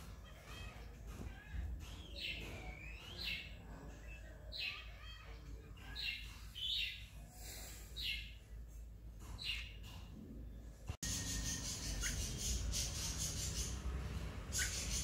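Rose-ringed parakeet giving a series of short, sharp calls with quick pitch glides. About eleven seconds in the sound cuts abruptly to a steady hiss of background noise.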